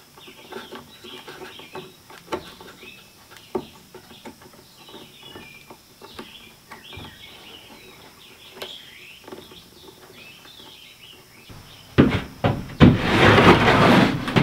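Small birds chirping, with faint clicks and taps of wire-nut and fixture handling. About twelve seconds in comes a knock, then a loud scraping rush as a plywood sliding door is pushed along its track.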